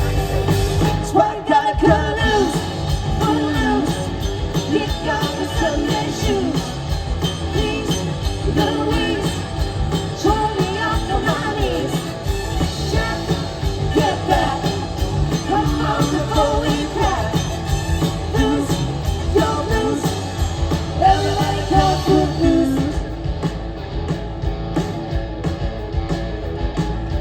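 Live rock band playing, with a lead singer over drums, bass and guitar.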